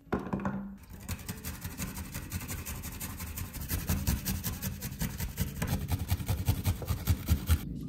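Garlic cloves rubbed quickly up and down a stainless-steel hand grater standing on a wooden cutting board: a fast, even run of rasping strokes, with low knocks of the grater against the board that are loudest near the end. A single knock sounds at the very start.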